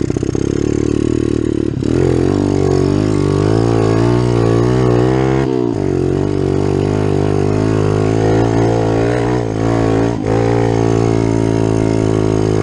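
Kawasaki KLX110 pit bike's single-cylinder four-stroke engine, fitted with a 143 cc big-bore kit, running hard under throttle while being ridden. Its pitch climbs and falls, with short sharp dips about two, five and a half, and ten seconds in.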